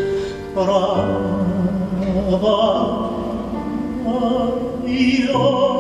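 A male voice singing long, drawn-out notes with vibrato in classical style over instrumental accompaniment, sliding through several notes on one sung phrase.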